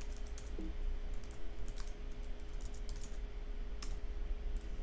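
Typing on a computer keyboard: irregular keystroke clicks as shell commands are entered, over a faint steady hum.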